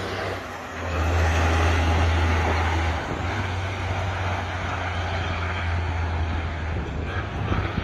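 Heavy truck's diesel engine pulling hard under load, hauling a lowboy trailer with an excavator on it up a hill: a deep steady drone that swells about a second in and eases slightly after three seconds.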